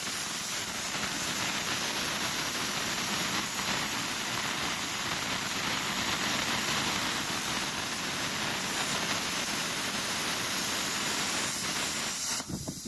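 Plasma cutter torch cutting a disc from steel plate: a steady, even hiss of the arc and air jet that cuts off suddenly near the end.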